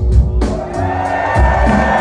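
Live band playing an instrumental stretch between vocal lines, with a pulsing bass line and drums, and the crowd cheering and whooping over it.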